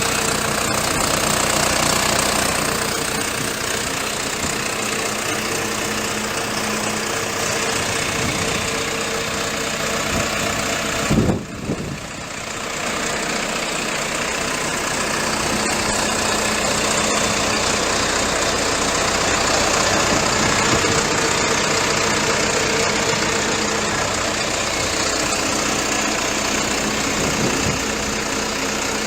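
Diesel engine of a Komatsu WB146-5 backhoe loader running steadily, with a short knock about eleven seconds in.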